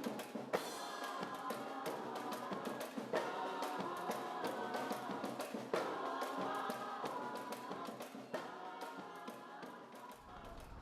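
Music with a steady percussive beat over held chords, fading down near the end.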